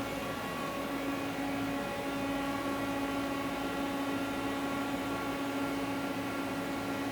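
Steady machine hum with a constant tone, running at an even speed with no starts, stops or changes.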